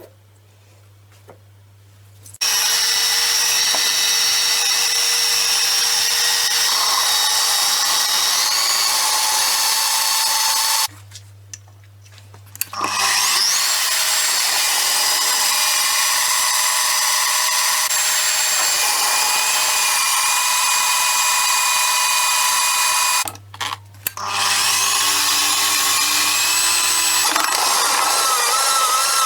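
Electric power tool motor running at speed with a high whine. It starts about two seconds in, stops for about two seconds near the middle, and cuts out briefly near the end before starting again.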